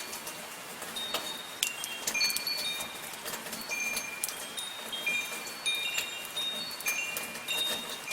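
Metal wind chimes ringing, many separate high notes struck irregularly and overlapping, over the steady patter of soft rain.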